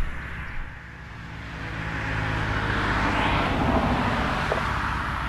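A motor vehicle passing on the road. Its engine and tyre noise swells to a peak about three seconds in, then eases off.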